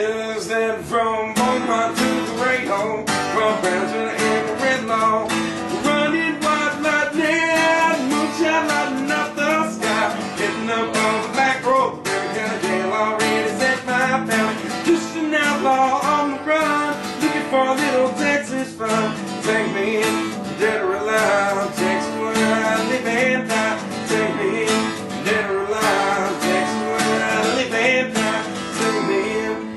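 A cutaway acoustic guitar strummed in a steady country rhythm.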